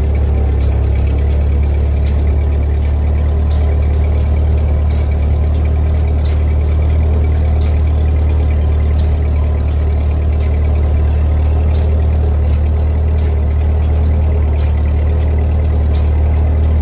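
Old tractor engine running steadily with a deep hum, while the old rake it pulls rattles along with light sharp clicks about once a second.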